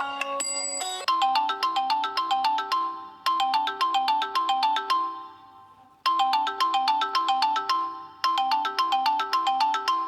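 A Samsung Galaxy Note 3 Neo ringtone: a quick melody of short, bright notes. It is played as a two-part phrase that repeats, fading out near the middle before starting again. The first second holds the tail of a different ringtone before this one begins.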